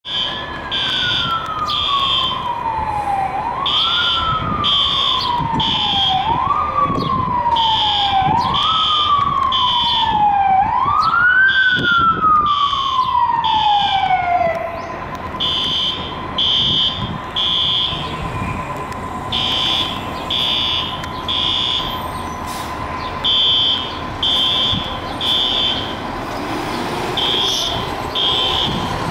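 A fire engine's siren wails for the first half, rising quickly and then falling slowly about every two and a half seconds, and stops about halfway through. A steady higher tone then carries on, and groups of short high-pitched beeps repeat throughout.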